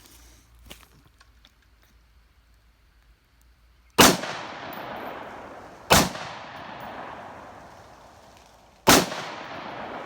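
Three gunshots, the first about four seconds in and the others about two and three seconds apart, each followed by a long echo that fades away.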